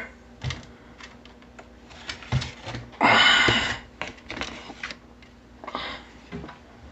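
Scattered light clicks and knocks of things being handled on a countertop, with a short scraping rustle about three seconds in as a paper plate is fetched and set down.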